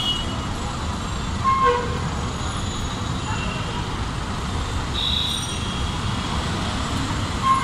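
Steady roadside traffic rumble from a busy street, with short vehicle horn toots about a second and a half in and again near the end.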